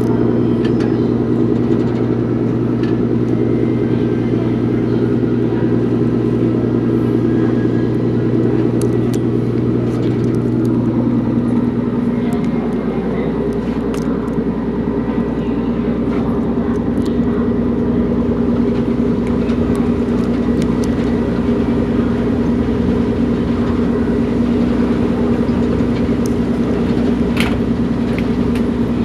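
Car ferry's engines running with a steady low drone, heard from the open deck as the ferry pulls away from the pier. About twelve seconds in, the deepest hum stops and the engine note falls a little in pitch.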